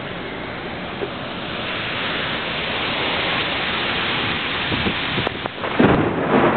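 Heavy thunderstorm rain, a steady hiss that slowly grows louder. Near the end a louder, deeper rush of noise sets in, as thunder or a gust hits the microphone.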